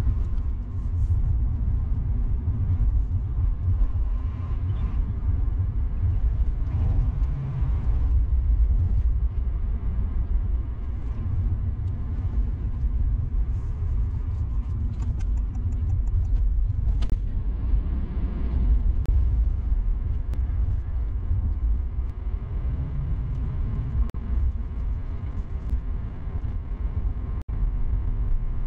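2022 Honda Fit e:HEV hybrid hatchback cruising on a country road: a steady low rumble of tyre and road noise.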